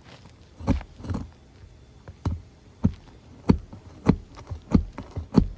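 About eight dull knocks and thumps at an uneven pace, from hand tools working a damaged three-tab asphalt shingle loose from the roof to get at its nails.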